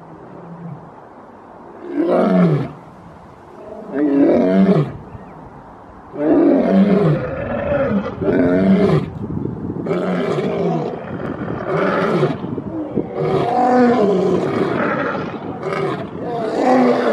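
Two male lions roaring: two separate roars, each falling in pitch, then from about six seconds in a long run of overlapping roars as both lions call together.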